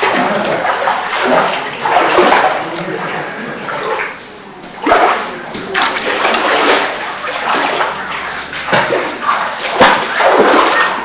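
Seawater sloshing and surging through the pools among granite boulders, in irregular swells that rise and fall every second or two.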